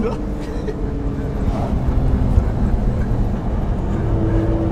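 Nissan GT-R R35's twin-turbo V6 and road rumble heard from inside the cabin while driving: a steady low drone that grows slowly louder.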